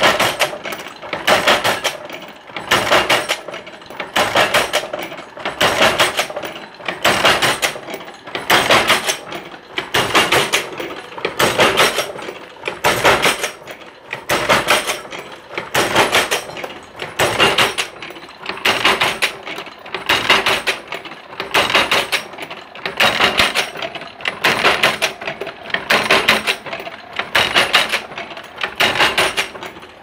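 Automatic wire buckle-making machine running, its tooling knocking and clattering in a steady working cycle that repeats about every one and a half seconds, one buckle formed per cycle.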